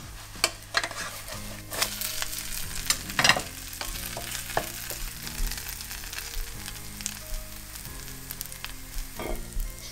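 Zucchini-and-egg pancake sizzling as it fries in oil in a pan, with a wooden spatula scraping and knocking against the pan as the pancake is turned over. The loudest scrape comes about three seconds in.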